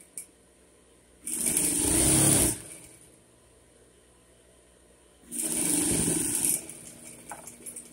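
Electric sewing machine stitching patchwork fabric pieces together in two short runs of about a second and a half each, one near the start and one past the middle, stopping between them.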